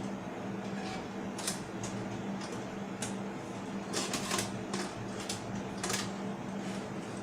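Scattered sharp clicks and taps, with a quick run of them about four seconds in, as hands handle the desktop computer's case and parts, over a steady low hum.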